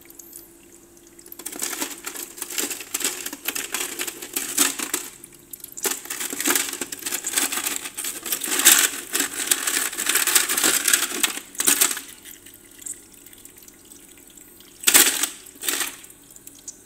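Freshly made square ice cubes clinking and rattling against each other and the plastic basket of a countertop ice maker as a hand stirs through them, for about ten seconds, then two short clatters near the end as cubes are picked up.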